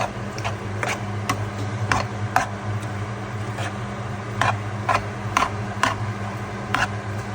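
Metal utensils clacking against a pan as chicken kottu is mixed, with irregular sharp strikes about one or two a second over a steady low hum.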